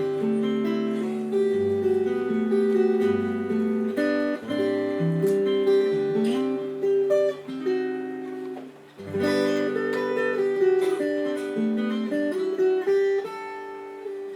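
Solo acoustic guitar played fingerstyle: a gentle melody plucked over sustained bass notes. It eases off and fades briefly about two-thirds of the way through, then resumes with a fresh bass note.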